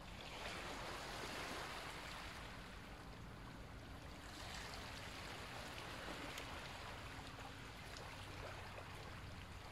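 Ujjayi breathing: slow, long breaths drawn through a narrowed throat, a soft rushing hiss that swells and fades over several seconds each.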